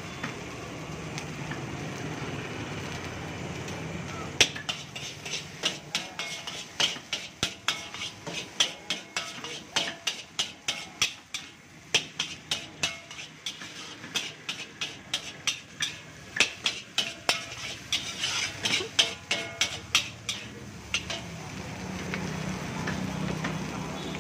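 Metal ladle striking and scraping a large iron wok as fried rice is tossed, with sharp ringing clangs about two or three times a second. The clanging starts about four seconds in and stops a few seconds before the end, leaving a steady low rumble on either side.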